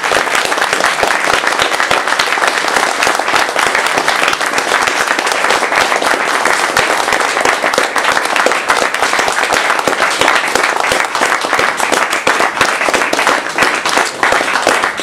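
Audience applauding: dense, steady clapping from a room full of people at the close of a lecture.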